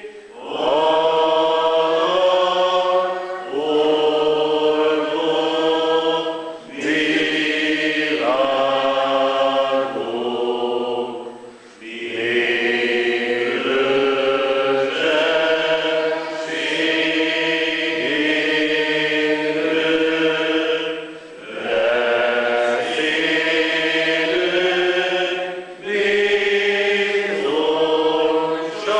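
A church congregation singing a slow hymn together, holding each note steadily, in phrases with short breaks between the lines.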